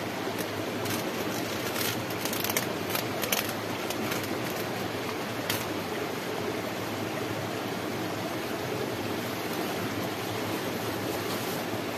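A shallow stream rushing steadily, with plastic cling film crackling and tearing as it is slit with a knife: several crackles in the first three or four seconds and one more about five and a half seconds in.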